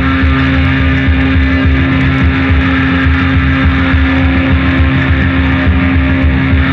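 Improvised noise-rock played on electric guitars: a loud, unbroken drone with one sustained tone held over a churning low rumble.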